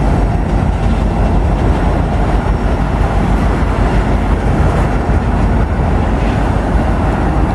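Freight train tank cars rolling past, a steady rumble of steel wheels on the rails.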